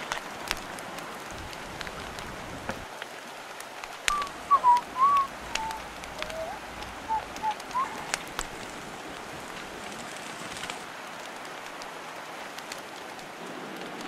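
Campfire hissing steadily, with sharp crackles and pops scattered through it. Between about four and eight seconds in, a few short, wavering whistled notes stand out.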